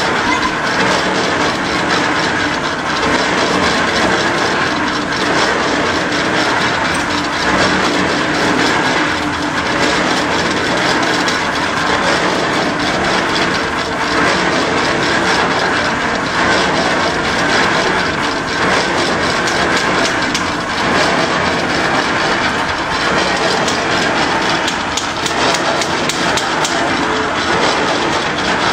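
Construction machinery running steadily on a building site, a continuous loud mechanical grinding noise with no pauses.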